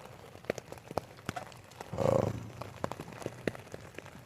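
Raindrops ticking irregularly on a tent, with a short, louder low sound about halfway through.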